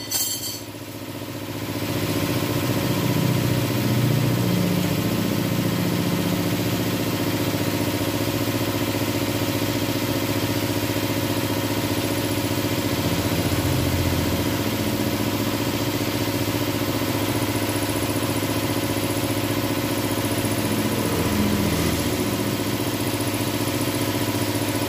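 A motor or engine running steadily, with an unchanging hum.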